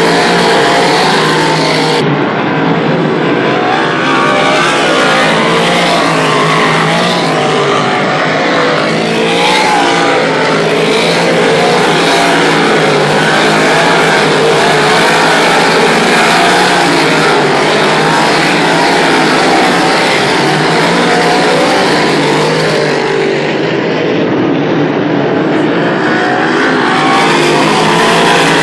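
A pack of big-block V8 modified race cars running hard around a dirt oval. It is a loud, continuous mass of engine noise, with many pitches rising and falling as cars pass.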